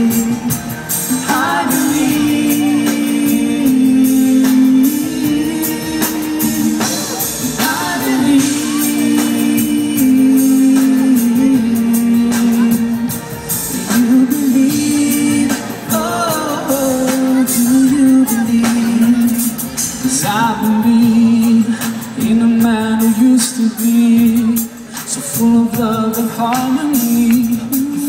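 Live band music with a male voice singing a long, wavering melody over drums and percussion, heard from the audience in a large hall.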